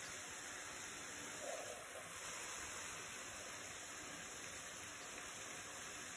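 Argentine red shrimp sizzling and simmering in a frying pan of sauce and chopped vegetables: a steady soft hiss, with a brief faint sound about one and a half seconds in.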